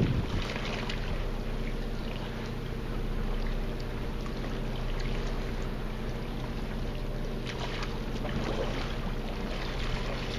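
Steady low hum of machinery aboard a boat, several tones held level, under an even hiss of wind and water.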